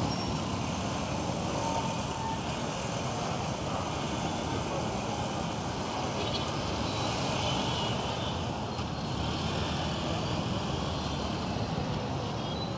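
Steady city traffic of many small motorcycle taxis, with some cars and minibuses, running and passing close by.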